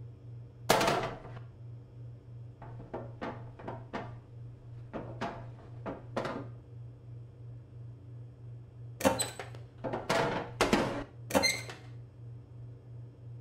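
Cartoon sound effects: a metal cupcake tin set down on a counter with a knock, then about a dozen light, quick taps as paper cupcake cases go into its cups. Near the end comes a cluster of louder knocks with a short metallic ring, over a low steady hum.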